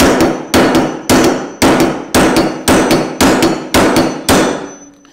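A hammer striking a cold chisel held against a tapered roller bearing on a steel steering stem, about two blows a second, nine in all, each ringing metal on metal. The bearing is being driven off the shaft and is on the move.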